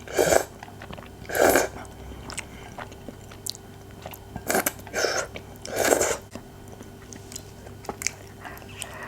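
Close-miked mouth sounds of a person eating and chewing, in five loud short bursts: two near the start and three around the middle.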